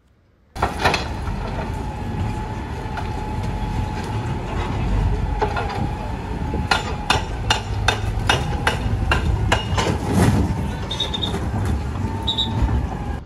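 Caterpillar excavator demolishing buildings: the machine runs with a low rumble under a steady whine. From about the middle a run of sharp knocks comes, about three a second, as concrete and rubble are struck and broken.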